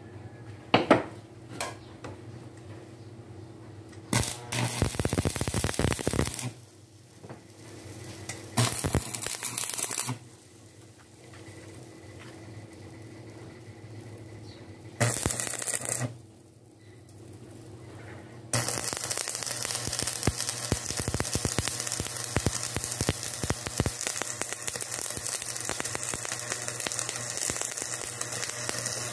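Stick (arc) welding on steel angle bar: the electrode's arc crackling and sizzling, first in a few short bursts, then steadily through the last ten seconds or so. A couple of sharp metal knocks sound about a second in.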